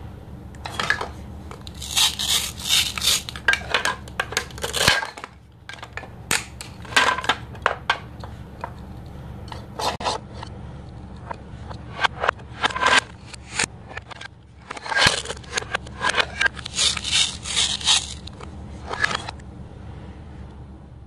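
Velcro hook-and-loop strips ripping apart as a plastic toy knife cuts through toy play-food fruits and vegetables, in about six crackly tearing bursts of a second or two each, with plastic pieces clacking on a plastic cutting board.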